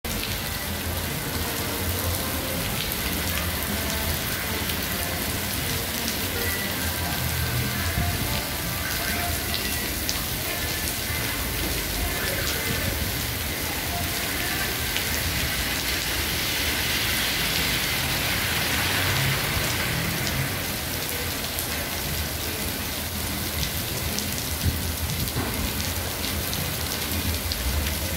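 Heavy rain pouring down onto a paved street, a steady hiss of falling rain with dense patter and splashing on the wet pavement, swelling slightly and sounding brighter about two-thirds of the way through.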